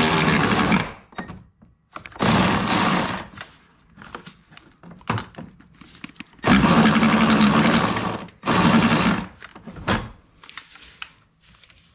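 Milwaukee cordless ratchet running in four short bursts, each a second or less, spinning a hard-to-reach bolt back in, with small knocks of the tool against the bolt between bursts.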